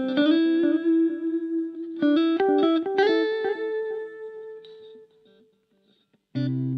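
Electric guitar played through a Blackstar Fly 3 mini amplifier. A quick run of picked single notes ends on a held note that fades away. After a short silence a new, fuller chord starts near the end.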